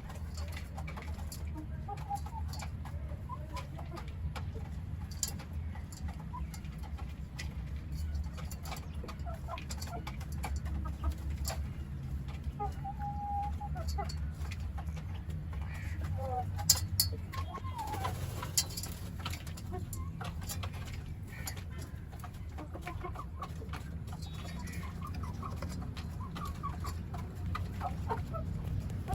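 Chickens clucking, with scattered short calls over a steady low rumble, and a few sharp clicks, the loudest about two-thirds of the way through.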